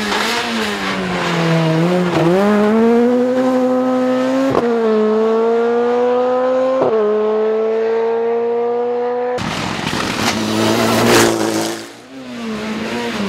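Rally car engine at full throttle, pulling up through the gears with quick upshifts about every two and a half seconds. About nine seconds in it changes abruptly to a rally car driving past loud and fast, fading briefly near the end before another car comes in.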